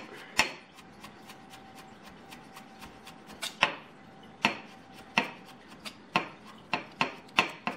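Kitchen knife chopping parsley on a wooden cutting board: a run of quick light taps, then a series of sharper knocks of the blade against the board in the second half.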